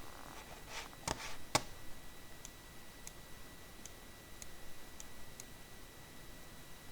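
Light clicks as small lock pins and parts are handled: two sharper clicks about a second in, then a few faint ticks spaced out over the following seconds.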